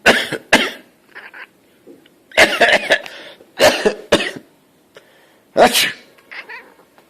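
A person sneezing several times in a row, loud and sharp. Between the sneezes, a cat gives short, quieter two-part meows that come out like 'bless you'.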